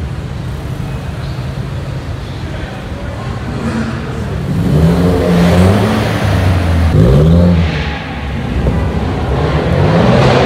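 Car engines in a parking garage: a steady low idle, then about four seconds in several quick revs that rise and fall in pitch, and more revving building near the end.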